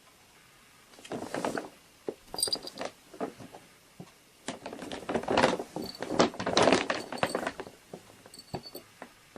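Irregular clattering of knocks, rustles and a few small metallic-sounding clinks, coming in bursts from about a second in and busiest in the middle.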